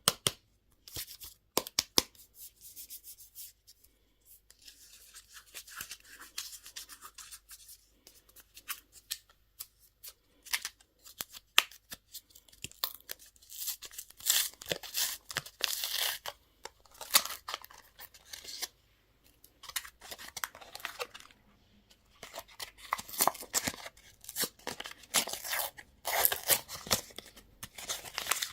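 Candy packaging being torn open and unwrapped by hand: crinkling and tearing of plastic wrappers, in bursts broken by sharp clicks and snaps.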